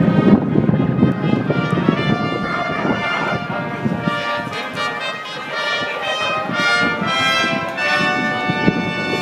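Brass fanfare played over the racecourse loudspeakers, a run of held trumpet-like notes, the kind sounded before a race. Wind rumbles on the microphone underneath, loudest in the first couple of seconds.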